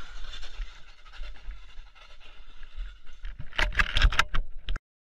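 Rumbling, scraping noise from a camera being jostled and tumbled about, then a rapid flurry of loud knocks and bangs about three and a half seconds in. The sound cuts off abruptly near the end.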